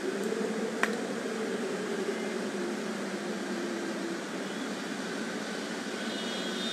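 Steady background hum of room noise, with a single short click about a second in.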